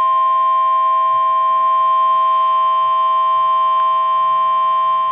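NOAA Weather Radio warning alarm tone: one loud, steady, unwavering tone held without a break. It signals that a warning broadcast is about to follow.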